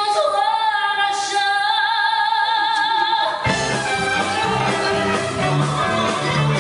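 Live stage music: a singer holds a long high note with vibrato, then about three and a half seconds in the band comes in in full, with bass, and the singing carries on over it.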